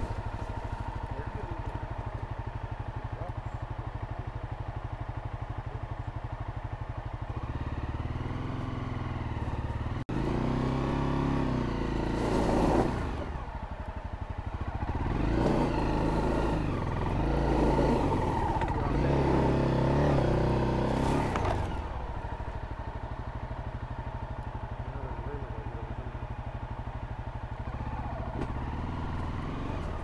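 Honda CRF250L's single-cylinder engine running at low revs. From about ten seconds in it revs up and down for roughly twelve seconds, louder, then drops back to a steady low idle.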